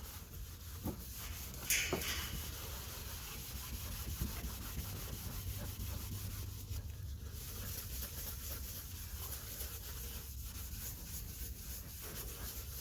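Restorer compound being rubbed by hand on a hazy plastic headlight lens to polish the haze out: a steady, even rubbing. There is one brief, sharper sound about two seconds in.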